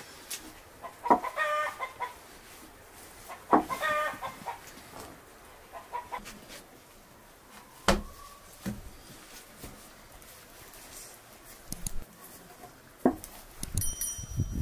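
Hens clucking, with two loud calls in the first four seconds. About eight seconds in, a sharp thud as the sheet of lavash dough is slapped onto the inside wall of the clay tandoor.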